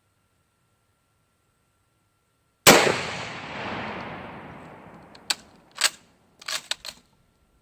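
A single rifle shot, very loud, with a long echo dying away over about two seconds. A few seconds in, after a silent start, and followed by several short sharp clicks.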